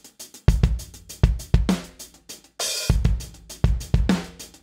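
Programmed drum-kit loop from the Groove Agent sampler, played through the Sonicrusher compressor plugin: kick, snare and hi-hat in a half-time beat, with a bright cymbal hit about two and a half seconds in.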